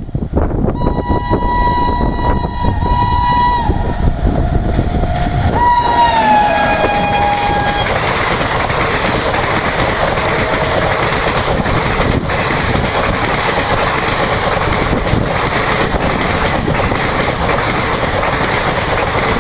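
WAP7 electric locomotive's two-tone horn sounding in long blasts as the express approaches at high speed. The horn's pitch drops as the locomotive passes about six seconds in. After that comes a loud, steady rush and clatter of the coaches running over the track at speed.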